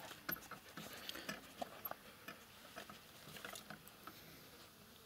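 Faint, irregular small clicks and patter from a laika puppy at its food bowl, thinning out after about two seconds.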